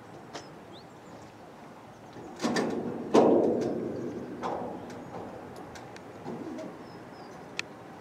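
Diesel locomotive hauling a train of coaches as it approaches. A sudden loud sound comes in about two and a half seconds in and grows louder about three seconds in, then fades away over the next two seconds. Faint bird chirps are heard throughout.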